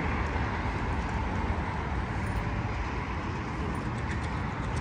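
Steady outdoor background noise: a low rumble with an even hiss over it, with no single event standing out.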